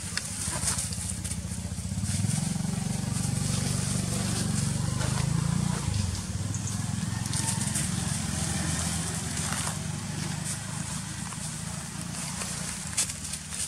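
An engine running, its pitch rising about two seconds in and dropping back about six seconds in, with scattered crackles of dry leaves.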